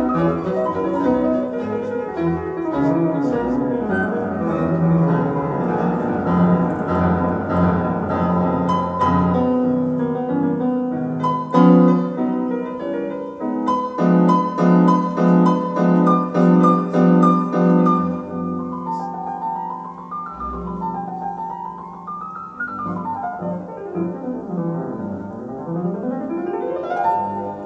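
Piano music played back over Kharma Exquisite Grand loudspeakers: steady chords, then quick runs sweeping up and down the keyboard in the last several seconds.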